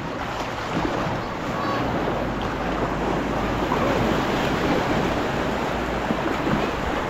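Sea water washing and splashing around a kayak on choppy water, with wind buffeting the microphone: a steady rushing noise.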